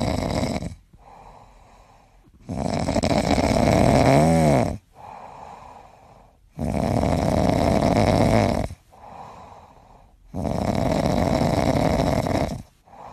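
Grey cat snoring in its sleep: loud snores about every four seconds, each lasting about two seconds, with a quieter breath between. One snore near the middle wavers up and down in pitch.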